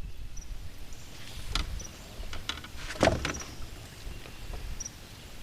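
A few sharp knocks and clunks from gear being handled in a small fishing boat, the loudest about three seconds in, over a low steady rumble.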